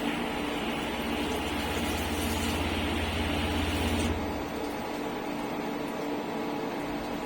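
CNC turning-milling centre running with a steady hum; for about the first four seconds a louder machining sound, a low drone with a hiss above it, rides on top and then cuts off suddenly.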